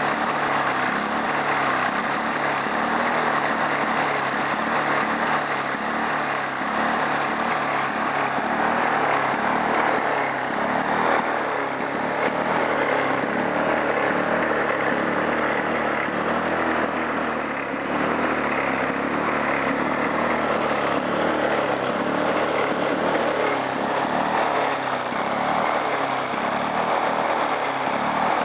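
Lawn-Boy 8233 mower's two-stroke engine running steadily, fitted with a defective solid-state ignition module.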